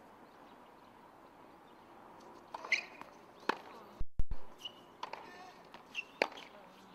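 A tennis rally on a hard court: several sharp racket hits on the ball, the loudest about four seconds in, with short high squeaks from players' shoes between them. The first couple of seconds are quiet.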